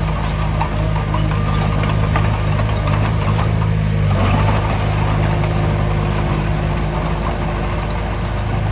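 Diesel engine of heavy earthmoving machinery running steadily, with light clanking and rattling over it and a slight change in engine note about halfway through.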